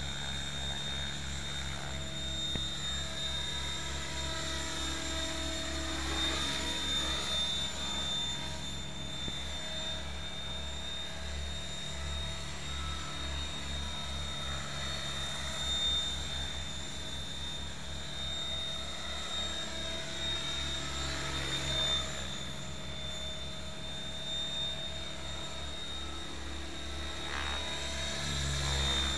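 Mikado Logo 600 electric RC helicopter in flight: the rotor blades and motor make a continuous whine and whir that swell and sweep in pitch several times as it passes the camera.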